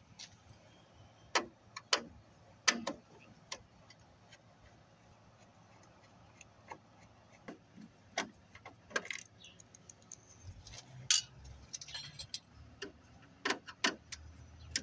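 Hand screwdriver clicking and tapping as it works screws out of a flat-screen TV's plastic back cover: irregular sharp clicks, a few louder than the rest.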